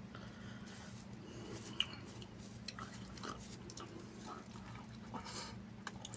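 Soft close-up eating sounds: chewing and small lip smacks and clicks while mouthfuls of chicken biryani rice are eaten by hand, over a steady low hum.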